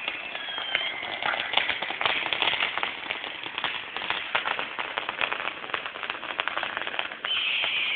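Fireworks crackling: a dense, irregular run of small sharp pops. A steady hiss joins in near the end.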